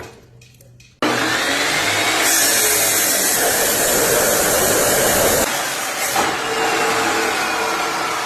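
Electric power saw starting abruptly about a second in and running loud and steady as it cuts the steel tie-rod tube to length. A harsher, hissier stretch of the cut runs through the middle.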